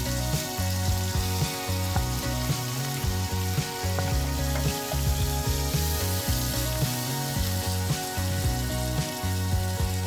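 Walleye deep frying in hot oil, a steady sizzle, over background music with a rhythmic bass line.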